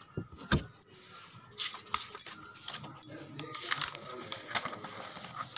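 Pages of a paperback textbook being turned and handled: scattered paper rustles and soft clicks, with a sharper knock about half a second in.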